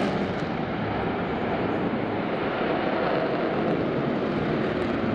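F-16 fighter jet flying overhead with its engine in afterburner: a steady, even jet noise.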